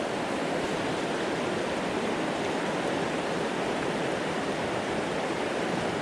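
Rushing of a fast, high river's rapids: a steady, even water noise.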